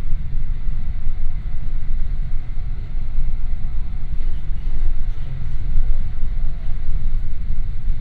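Steady low rumble of a passenger train running at speed, heard from inside the carriage: wheels and running gear on the track, with no distinct clicks or announcements.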